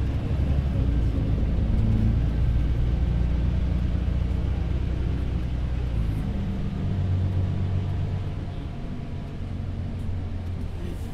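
Volvo 8900LE city bus under way, heard from inside: the diesel engine's low drone over road rumble. The engine note shifts about six seconds in, and the sound grows quieter toward the end.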